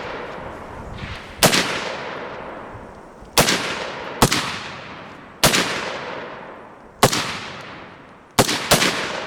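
Seven rifle shots at irregular intervals, two of them close together near the end, each followed by a long echo rolling away.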